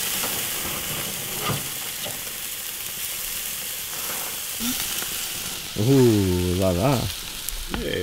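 Chorizo sausages and burger patties sizzling on a gas grill: a steady hiss of fat frying over the flames.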